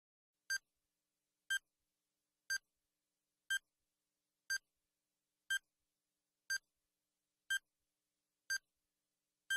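Countdown timer sound effect beeping once a second: ten short, identical high beeps, each ticking off a second as the quiz timer runs down.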